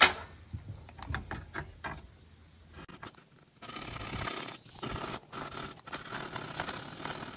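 A hand coping saw cutting the end of a crown molding to cope it for an inside corner, rasping in short regular strokes from about three and a half seconds in. Before that, a sharp knock at the very start and a few light handling clicks.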